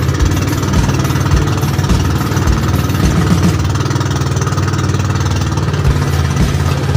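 Motorized outrigger boat's engine running steadily under way, a fast, even chugging.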